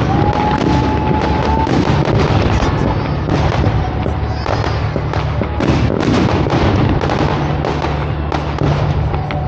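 Aerial fireworks display: a rapid run of bangs and crackling bursts over background music.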